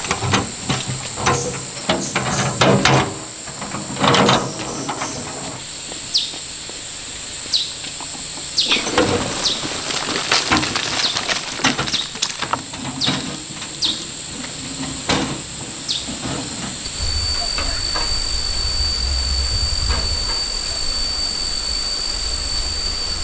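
Steady high insect chirring with scattered knocks and clicks of handwork. About seventeen seconds in the sound changes suddenly to a low rumble with a steady high whine.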